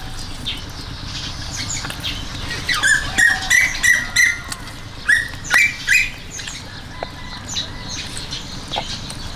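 Birds chirping: a quick run of short, loud chirps between about three and six seconds in, then scattered fainter calls, over a steady low background noise.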